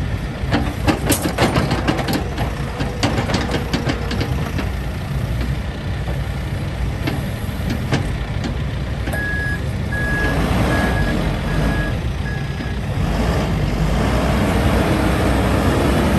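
John Deere 310L backhoe loader's diesel engine running, with a quick run of clanks and rattles in the first few seconds. Its backup alarm beeps five times in steady succession partway through, then the engine grows louder near the end.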